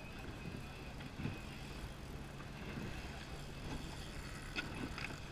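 Outboard engine of an inflatable boat idling with a steady low hum, with two short clicks near the end.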